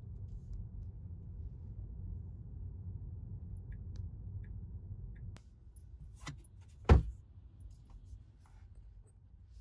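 Low road rumble inside a moving car's cabin that drops off about five and a half seconds in as the car slows, followed by a few faint clicks and one sharp knock a second and a half later.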